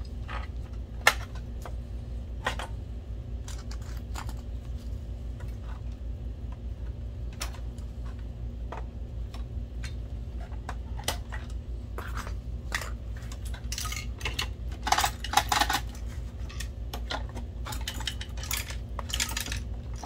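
Scattered clicks and clacks of plastic parts and a small screwdriver as a projector's cooling fan and its plastic duct are unscrewed and handled, with a burst of louder clattering about three-quarters of the way through. A steady low hum sits underneath.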